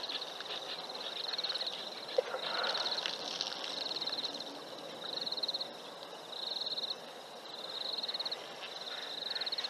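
A small creature's high, finely pulsed trill, repeating about once a second over a steady outdoor hiss, with a single sharp click about two seconds in.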